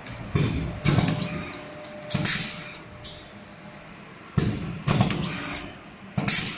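Semi-automatic wire-folding labeling machine running through its labeling cycles. It makes sharp mechanical clunks, mostly in pairs about half a second apart, repeating roughly every two seconds.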